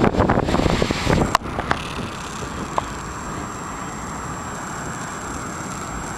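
Wind buffeting the camera microphone in rough gusts, cutting off abruptly about a second and a half in. A steady rush of wind and surf follows, with a couple of light handling clicks.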